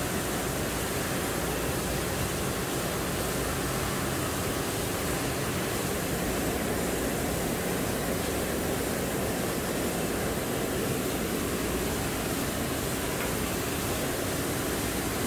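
Rotary pressure-sensitive bottle labeler and its conveyors running: a steady, even rushing noise with a faint low hum underneath and no distinct clicks or beats.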